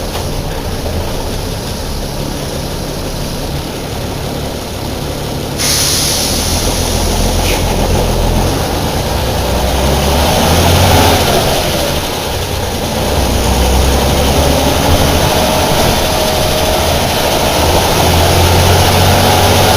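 Air-cooled Deutz BF6L 913 C turbo diesel of a 1997 El Detalle OA 101 bus running. It gets louder about five and a half seconds in, then swells and falls with its pitch rising and dropping.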